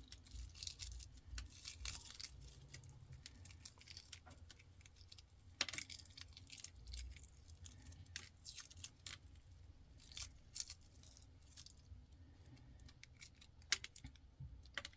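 Shells of hard-boiled eggs being cracked and peeled off by hand: faint, scattered crackles and small clicks, with a couple of sharper taps.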